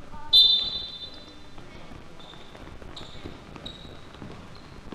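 A referee's whistle blown sharply once, a loud high shrill tone that dies away within about a second, followed by a few fainter, shorter whistle tones.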